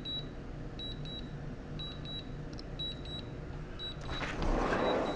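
Drone remote controller sounding its warning: short, high beeps in pairs about once a second over a low steady hum. A brief rush of noise swells and fades about four seconds in.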